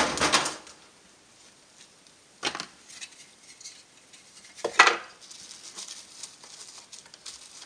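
Hard plastic battery-pack casing being handled on a workbench: a clatter at the start, then two sharp knocks, about two and a half seconds in and near five seconds, with light clicking and rustling between.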